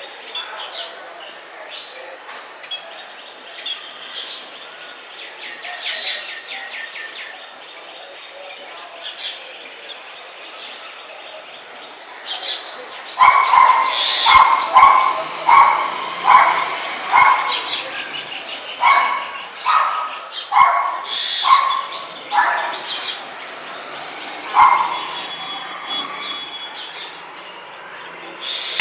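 Birds chirping and trilling. About halfway through, a dog barks repeatedly, roughly once a second, for several seconds; the barks are the loudest sound.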